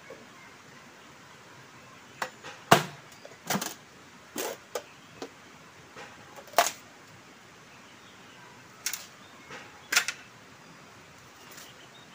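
Machete chopping a green bamboo pole: about ten sharp, irregularly spaced chops and cracks, the loudest about three seconds in.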